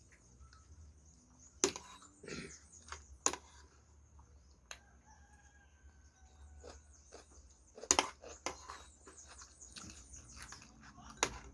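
Quiet eating sounds: a few sharp clicks and taps while food is handled and chewed. A faint rooster crows in the background about halfway through.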